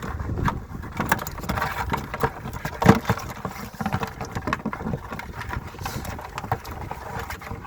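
Tongs clattering and scraping against live blue crabs as they are grabbed, many short irregular clicks and knocks, over a steady rumble of wind on the microphone.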